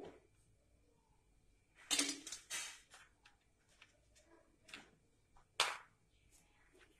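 A few scattered short clicks and knocks around a steel pan of cashews dry-roasting without oil, with quiet stretches between them.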